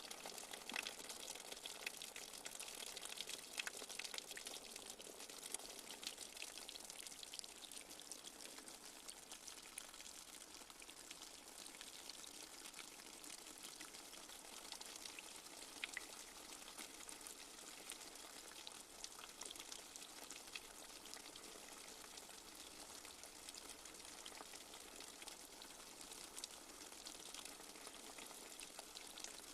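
Light rain falling steadily, a fine patter of many small drops with occasional louder drips.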